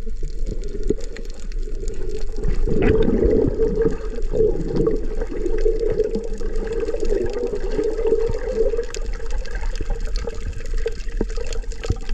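Sea water sloshing and bubbling close around the camera while snorkelling, heaviest for several seconds from about two and a half seconds in, with many faint clicks throughout.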